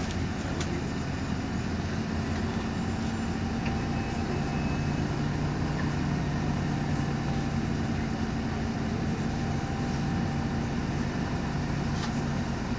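Cabin sound of a MAN Lion's Classic city bus with a CNG engine, creeping forward: the engine's steady low drone with a steady whine over it from the rear differential, which is noisy. A deeper engine note comes in about four seconds in and holds until near the end.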